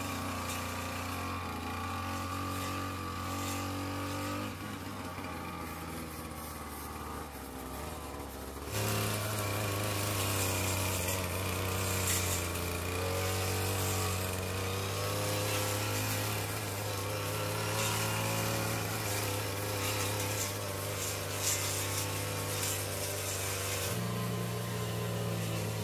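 Petrol brush cutter, a two-stroke engine carried on the back, running steadily while cutting grass and weeds. It sounds distant at first, then much closer and louder from about nine seconds in.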